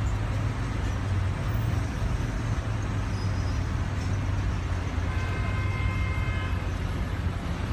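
Steady road traffic with a low rumble. About five seconds in, a faint high-pitched tone sounds for roughly two seconds.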